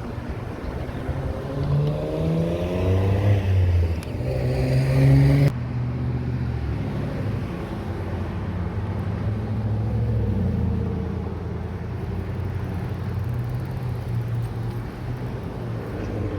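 Car engine accelerating, its pitch rising twice as it climbs through the gears. About five seconds in the sound changes abruptly to a steady low engine drone.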